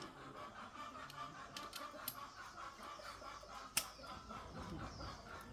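Faint light clicks and taps of small metal parts being handled, with one sharper click near the middle.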